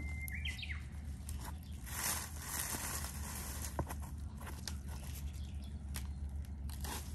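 Scuffs, rustles and light taps of a person clambering over a concrete wall among dry leaves and brush, over a steady low rumble. A brief high chirp sounds right at the start.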